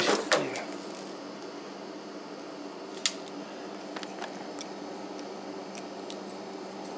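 Light metal clicks of a PEX cinch clamp tool being fitted onto a cinch clamp on PEX pipe, with one sharper click about three seconds in, over a steady low hum.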